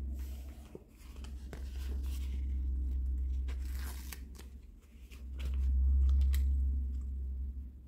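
A paper sticker peeled off its backing sheet, the sheet crinkling, with light clicks as plastic toy ice-cream pieces are handled, over a steady low hum.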